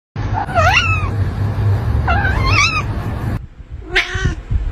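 Domestic cat meowing: two drawn-out meows that bend up and down in pitch over a low rumble, then, after an abrupt change in the background, a shorter meow near the end.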